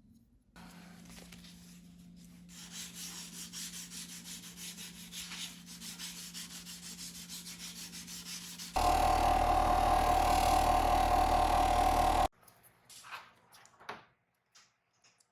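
A small electric tool hums steadily while a part is rubbed or sanded against it in a scratchy rhythm. About nine seconds in, a much louder, higher-pitched tool noise cuts in abruptly for about three and a half seconds and stops just as suddenly, followed by a few light clinks.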